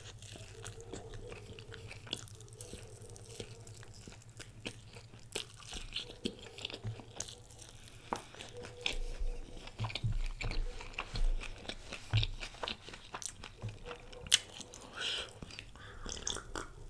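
Close-miked biting and chewing of saucy fried chicken, with irregular crunches and wet mouth clicks throughout. Near the end, a sip of cola from a glass.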